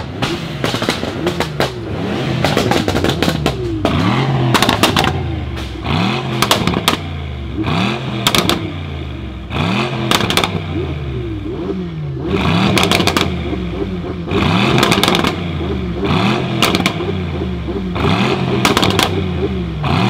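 BRABUS 800 Mercedes-AMG E63 S 4.0-litre twin-turbo V8 revved repeatedly while standing still: each blip climbs and falls back, roughly one every couple of seconds, with sharp exhaust crackles and pops between them.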